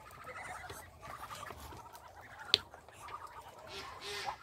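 Faint, scattered calls from a flock of Muscovy ducks, with one sharp click about two and a half seconds in.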